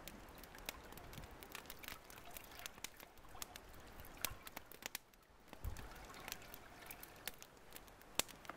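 Water dribbling and splashing back into a pot as a soaked bundle of bark and roots is lifted out on a stick, with scattered sharp crackles from the wood fire beneath.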